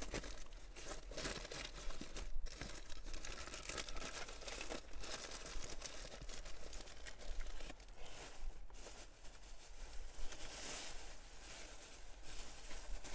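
Faint crinkling and rustling of sandwich wrapping paper being handled, made up of many small crackles.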